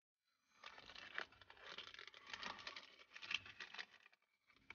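Quiet crinkling and tearing of an ice-lolly wrapper as it is torn open and the sorbet bar is pulled out: a dense run of small crackles lasting about three and a half seconds.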